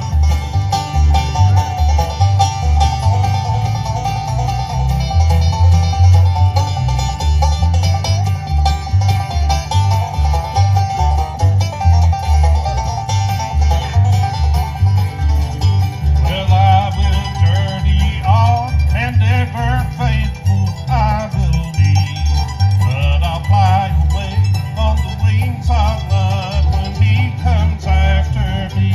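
Bluegrass band playing, banjo and guitar picking over a steady pulsing bass beat. A wavering lead line comes in a little past halfway.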